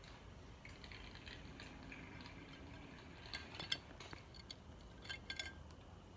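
Small metal parts clinking and clicking in quick light taps, one cluster about halfway through and another near the end: valves and springs being handled and fitted into a transmission valve body.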